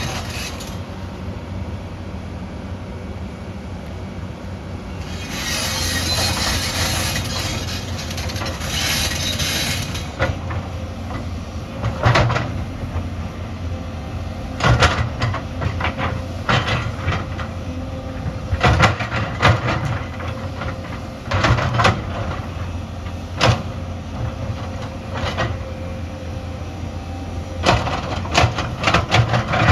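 Excavator's diesel engine running steadily, with a high hissing squeal for several seconds early on, then repeated sharp clanks and knocks of stones against the steel bucket.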